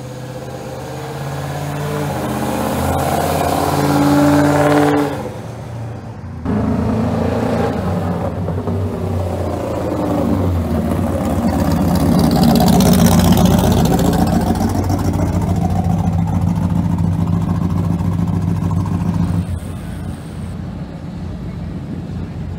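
Muscle-car V8 exhausts driving past one after another. The first engine climbs in pitch and loudness, then cuts off suddenly about five seconds in. A classic Mustang fastback's V8 then rumbles past, loudest about halfway, and near the end the sound drops to a quieter, steady engine note.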